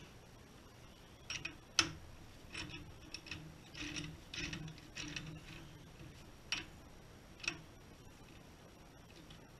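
A four-jaw scroll chuck on a wood lathe being tightened onto a small wooden block with its chuck key: sharp metal clicks, then a series of short scraping turns of the key, and two more clicks near the end.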